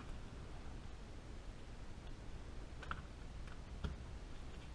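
A few light clicks as a screwdriver works an action screw through a rifle's bedded stock into the action, two of them a little louder about three and four seconds in.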